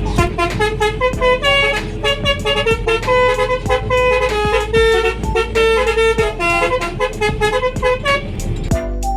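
Bus 'om telolet' horn, a set of multi-tone air horns, playing a tune: several tones sound together and change in quick steps, stopping a little before the end. Background music with a steady beat plays under it.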